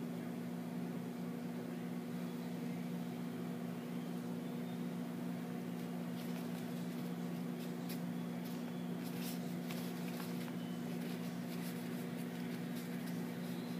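Steady low hum with several fixed pitches, like a running fan or appliance. From about six seconds in it carries faint light clicks and rubs as modelling clay is rolled and pressed by hand on a table.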